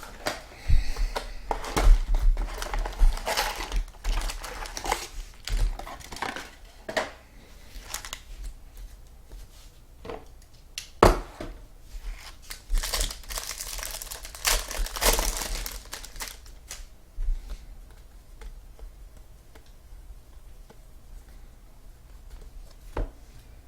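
2015 Bowman Football trading-card pack wrappers crinkling and tearing open, with cards being handled, in irregular rustles and sharp clicks. The handling is busiest through the first two-thirds and thins out near the end.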